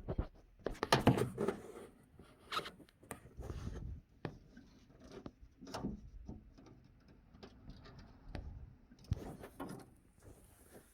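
Handling noises from an aftermarket plastic door handle being worked at in a car door: irregular clicks, knocks and short rubs as it is pushed and fiddled with. It will not sit flush, so the front of it does not seat.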